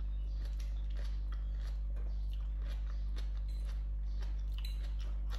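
A person chewing a mouthful of stir-fried noodles and vegetables close to the microphone: irregular soft clicks and crunches, over a steady low hum.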